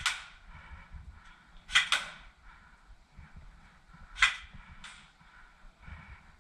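Airsoft gun firing single shots, about five sharp cracks in irregular pairs: one at the start, two close together about two seconds in, and two more a little past four seconds.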